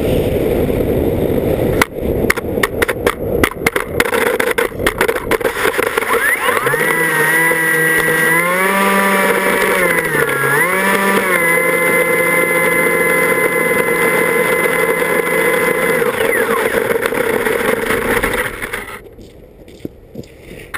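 An FPV model aircraft's motor and propeller, heard from the onboard camera with heavy wind rush and buffeting. A few seconds in, a steady hum comes through; its pitch rises and dips twice with the throttle, then holds. The sound falls away sharply near the end as the aircraft comes down on the ice.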